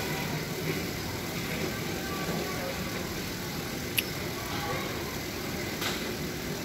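Steady background noise of traffic and a busy workshop, with faint voices and a sharp metallic click about four seconds in, then a softer click near the end.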